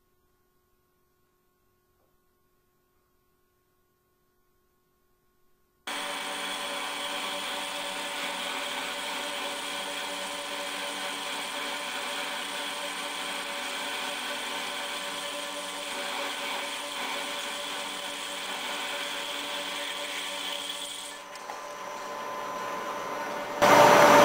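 Silence for about the first six seconds, then a metal lathe running steadily, a mechanical whine made of several steady tones. The sound changes about 21 seconds in, and near the end a much louder burst of noise lasts about two seconds.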